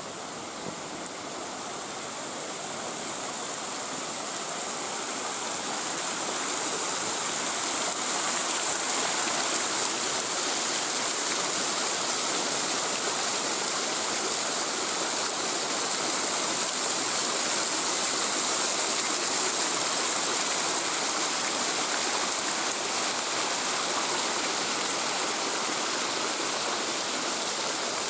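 Small waterfall cascading over rocks into a mountain stream, a steady rushing hiss of water that grows louder over the first several seconds and then holds.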